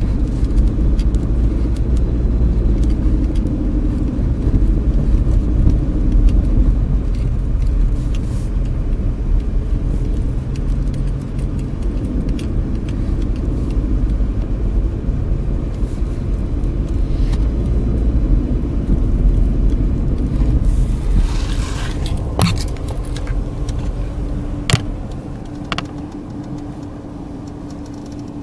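Car running slowly along a road, heard from inside the cabin: a steady low rumble of engine and tyres. About three-quarters of the way through it eases to a quieter, steadier engine hum as the car slows, with a few sharp clicks.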